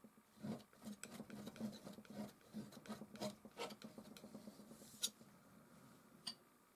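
Metal palette knife scraping and spreading oil paint on a painting in a quick run of short strokes, followed by a couple of light ticks as it lifts off.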